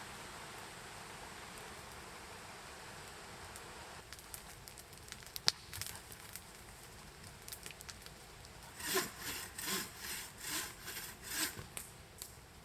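Wood being sawn by hand: about six rhythmic saw strokes, roughly two a second, in the second half. Before them there is a steady hiss and a single sharp click.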